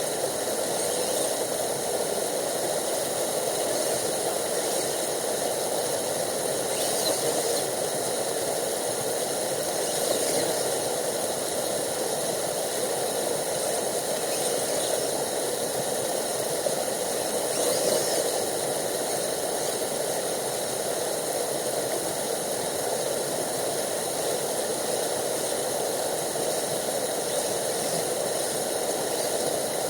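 Steady rushing of a stream, with a faint, constant high whine over it and a few brief louder swells.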